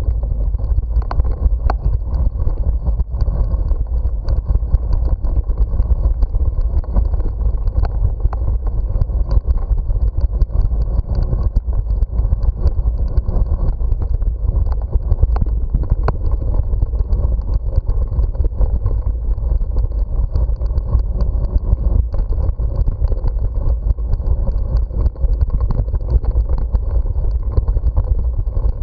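Steady low rumble and rattle of a bicycle riding over brick paving, heard from a camera mounted on the bike, with many small clicks from the bumps.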